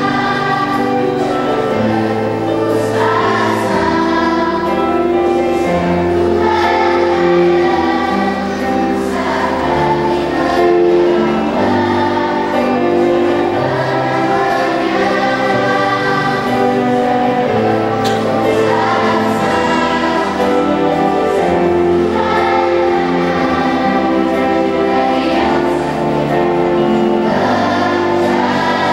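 Children's and youth choir singing an Indonesian pop song in unison over a steady instrumental accompaniment with sustained bass notes.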